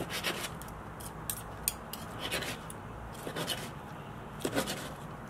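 Steak knife sawing through a grilled steak on a paper plate, with scraping and a few sharp clicks of the knife and fork.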